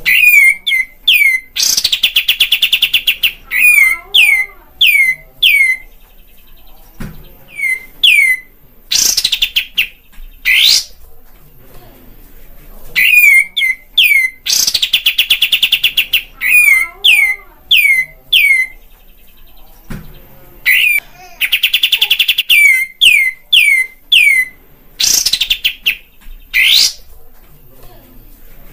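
Kapas tembak (olive-winged bulbul) singing in repeated loud bouts. Strings of quick whistled notes sweep sharply downward, broken by rapid buzzing trills lasting one to two seconds. The bouts return about every six to seven seconds.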